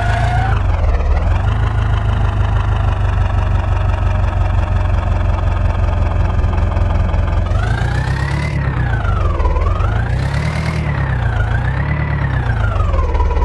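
Diesel engine running steadily, then revved up and down three times in the last few seconds.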